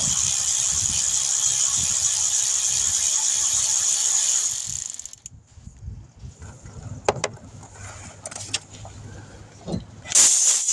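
A cordless electric ratchet runs for about five seconds on the nut of the AC compressor's refrigerant line, then a few clicks from a hand ratchet. Near the end a sudden loud hiss bursts out as the line comes loose on a system still holding Freon.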